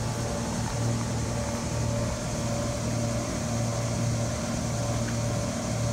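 A steady low machine hum from a motor or engine running continuously.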